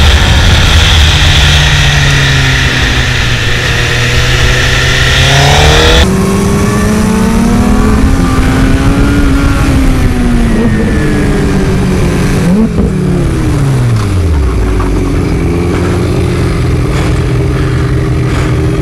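Sportbike engines heard through heavy wind noise on the microphone: first one running steadily at speed with the revs climbing, then after a sudden switch another motorcycle engine rising and falling through the gears. About thirteen seconds in its pitch falls sharply as it slows, and it settles to a low, steady run near the end.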